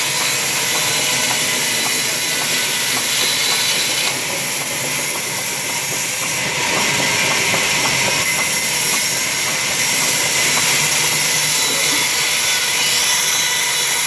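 Sawmill saw running and cutting through a timber plank fed along its table by hand, making a loud, steady hiss.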